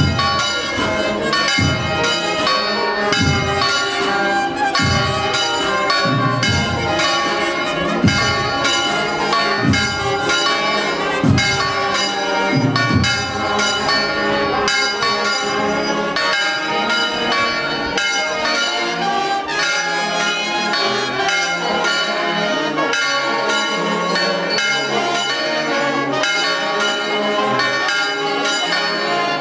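Church bells ringing a continuous festive peal, many bells struck in quick succession. A deep bell strikes about every second and a half through the first half, then drops out about halfway through.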